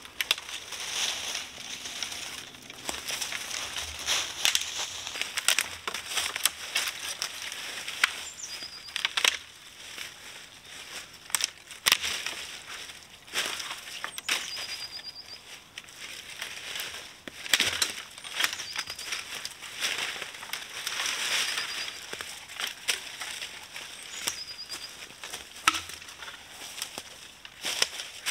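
Footsteps crunching through dry leaf litter, with dead branches rustling, scraping and cracking as dead wood is gathered for firewood. A small bird gives a short high chirp a few times in the background.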